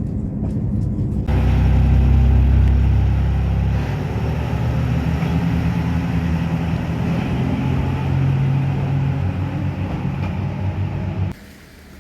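Vehicle engine running with a steady low rumble, growing louder about a second in and cutting off abruptly near the end.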